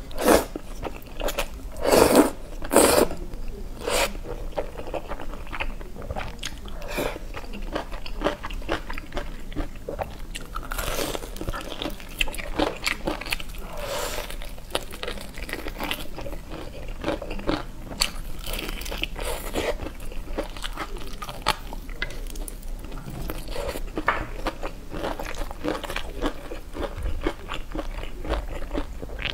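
Close-up eating sounds: black bean noodles slurped in with wet mouth noises, and crispy fried chicken bitten and chewed with crunching. The sounds come as irregular short clicks and crunches, loudest in the first few seconds.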